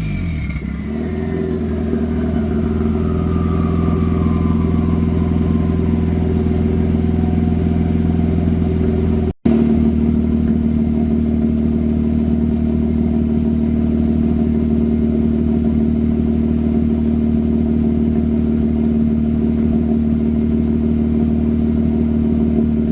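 Mazda RX-8's twin-rotor Wankel engine settling from a rev down to a steady idle during its cold-start warm-up, the pitch falling over the first second and then holding.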